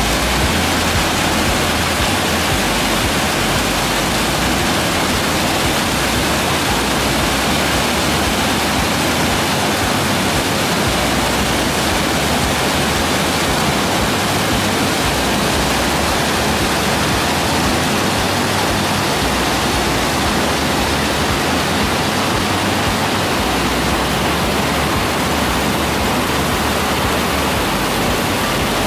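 Hot-spring water pouring off the ends of wooden cooling channels and falling into a steaming pool: a steady, loud rush of falling water.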